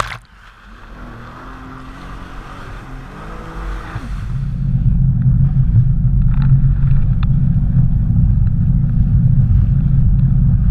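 A sudden splash of water against the jet ski at the start, then the jet ski's engine running. About four seconds in it settles into a loud, steady low hum.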